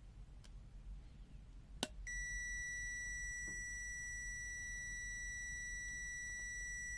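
A digital multimeter's buzzer sounding one steady, high-pitched beep that starts just after a sharp click a little under two seconds in. This fits the meter's low-resistance beep as the probes meet a 1 ohm resistance during a resistance check.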